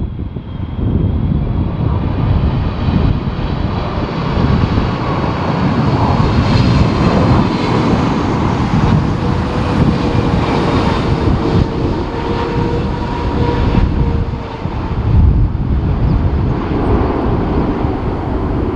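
Jet airliner coming in to land, its engines running with a steady whine held for several seconds over a heavy rumble. Gusty wind buffets the microphone throughout.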